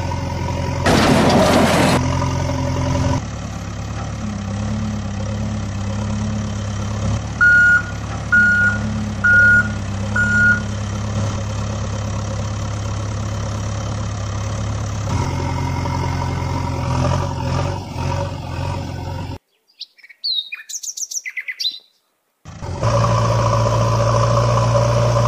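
Heavy diesel construction-machine engine sound running steadily. Four reversing beeps come about a second apart around a third of the way in. Near the end the engine drops out for about three seconds while birds chirp, then it runs again.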